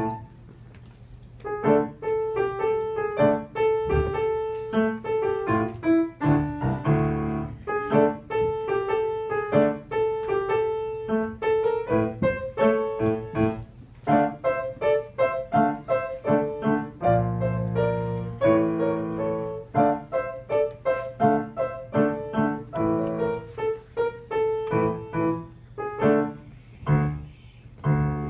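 Grand piano played solo: a fast run of struck notes with one middle-register note repeated again and again, resuming after a short pause about a second and a half in.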